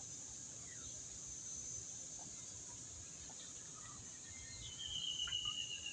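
Outdoor ambience of steadily chirring insects, with a few faint bird chirps. About five seconds in, a bird gives a long, thin whistle that slides slightly down in pitch.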